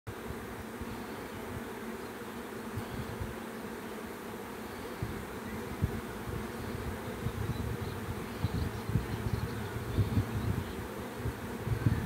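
A swarm of honeybees buzzing: a dense, steady hum from many bees flying around the hive box. Irregular low bumps cut through the hum, more often in the second half.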